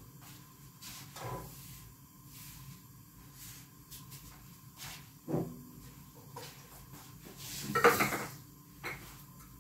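Kitchen handling sounds: scattered light knocks and clicks of dishes and cupboards, with a louder clatter lasting about half a second around eight seconds in.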